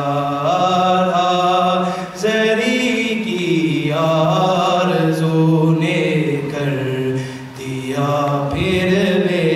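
A man's voice chanting an unaccompanied devotional recitation in long, drawn-out melodic phrases, with short breaths about two and seven and a half seconds in.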